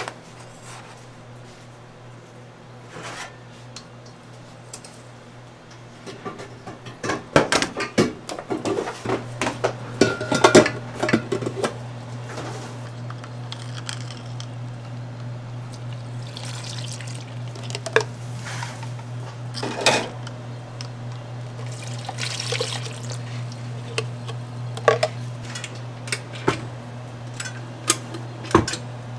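Stainless-steel mixing bowls and utensils clinking and clattering as bagel-dough ingredients are weighed and poured in, with a burst of clatter several seconds in and single knocks later, over a steady low hum.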